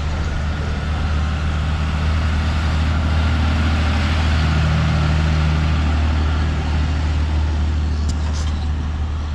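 Motor vehicle traffic on the road: a steady low engine hum with road noise, swelling a little around the middle.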